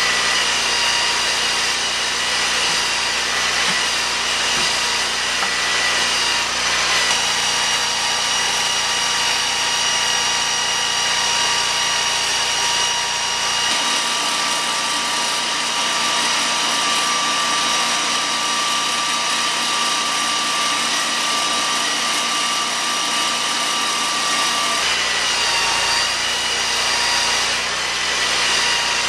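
Lucas portable sawmill's engine running steadily under load as its saw cuts through a large log, a loud, even machine whine that changes tone abruptly a few times.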